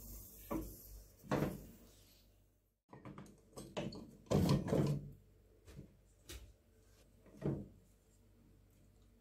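Aluminium pressure cooker being opened by hand: metal clunks and rattles from its weight valve, lid and locking bar, with the loudest clatter about four to five seconds in and a few single knocks after it.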